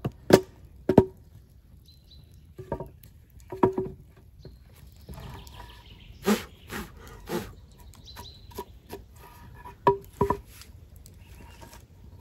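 Sharp knocks of a tool striking wood, about ten in irregular groups, some coming in quick pairs.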